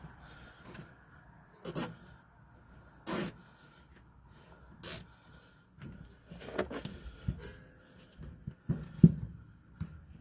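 Plastic zip ties being pulled tight around a folded rubber suspension air bag: three short rasping pulls, then a run of light knocks and clicks from handling the bag and spring, the loudest a sharp knock about nine seconds in.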